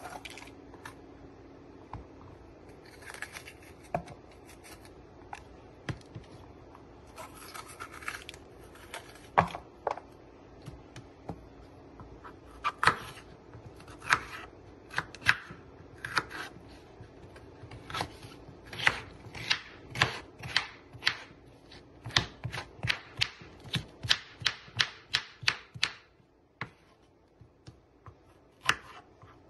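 Knife chopping vegetables on a wooden cutting board: a run of sharp taps that quicken to about two or three a second in the second half, then stop shortly before the end. Short scraping sounds come early, around the third and eighth seconds.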